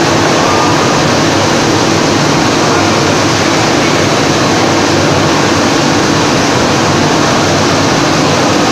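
Extrusion coating lamination plant running: a loud, steady machine din with a low hum underneath.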